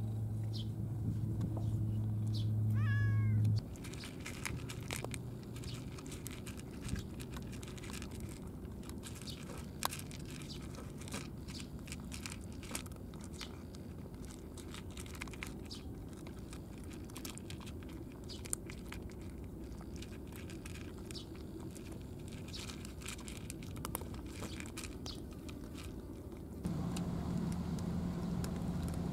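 A cat meows once, about three seconds in, over a steady low hum. Then comes a long run of cats crunching dry kibble, many small crisp clicks. Near the end the steady low hum returns.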